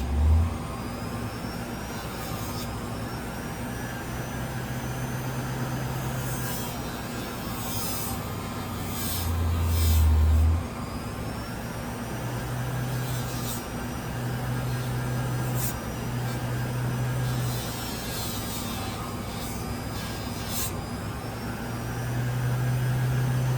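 Small Central Machinery grinder running with a fiber wheel, its pitch wavering as the knife is worked against the wheel, with a steady motor hum underneath. A louder low rumble comes about nine to ten seconds in.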